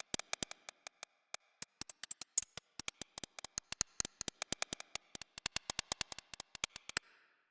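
A rapid, irregular run of sharp clicks, several a second, that stops abruptly near the end.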